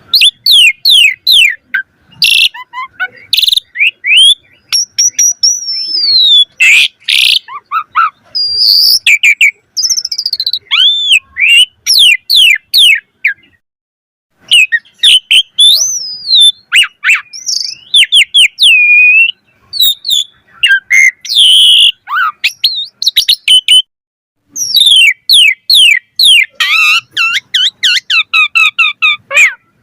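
Asian pied starling (jalak suren) singing a fast, varied song: runs of quick chattering notes, clear whistles and a few harsh calls, broken by short pauses.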